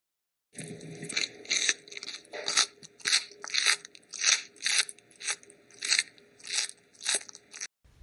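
An animal chewing something crunchy: a steady run of sharp crunches, about two a second, cut off abruptly near the end.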